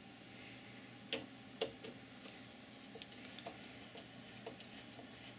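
Faint clicks and light ticks of hands handling shims and a small screwdriver at a screw on the metal bracket of a home-built CNC plotter's platform. Two sharper clicks come a second or so in, then scattered lighter ticks.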